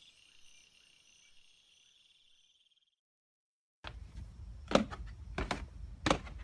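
Faint crickets chirping, fading out over about three seconds. After a moment of silence, a low hum comes in with slow, evenly spaced knocks, about one every 0.7 seconds.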